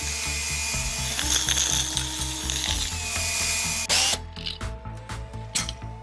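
KEAYANG DD-962 cordless drill driver running, its motor cutting off suddenly about four seconds in, followed by a few light clicks. Background music with a steady beat plays under it.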